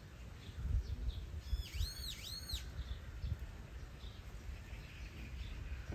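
A bird calling: a quick run of about three arched, rising-then-falling chirps lasting about a second, over a steady low rumble.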